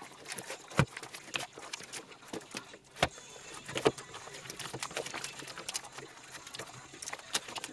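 Plastic binder sleeves crinkling and rustling as photocard pages are turned by hand, with a few sharper clicks and taps among them.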